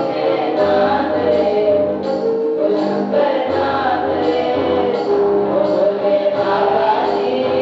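A group of students singing a song together, with keyboard accompaniment and a steady beat.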